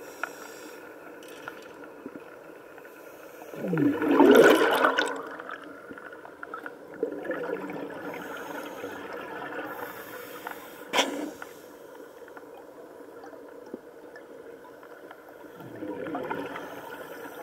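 Scuba diver's regulator exhaling underwater: a loud rush of bubbles lasting about a second and a half, about four seconds in, and a softer one near the end. A single sharp click about eleven seconds in.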